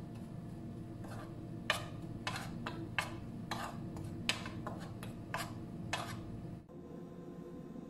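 Metal spoon scraping and clinking against a ceramic bowl while stirring dry gram flour and spices: about a dozen irregular strokes over a steady low hum, stopping abruptly about two-thirds of the way through.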